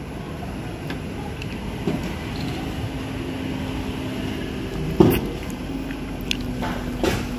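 Steady low room hum with a faint held tone through the middle, and two short knocks, about five seconds in and again near the end.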